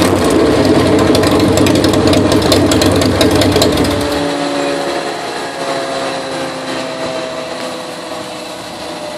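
Touring motorcycle's engine running hard on a chassis dyno, dropping away suddenly about four seconds in. The dyno roller and rear wheel then spin down with a slowly falling whine.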